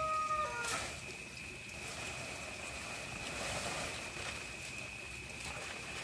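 The tail of a rooster's crow, a stepped, held call that breaks off under a second in with a click. After it a thin, steady high-pitched tone goes on alone.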